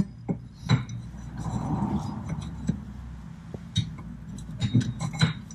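Scattered metallic clicks and taps as a long hollow inner tie rod removal sleeve and its adapter are worked onto a car's inner tie rod to get it to seat, over a steady low hum.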